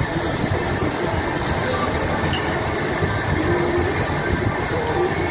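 Loud, steady restaurant din: an even rumbling noise with faint indistinct voices mixed in.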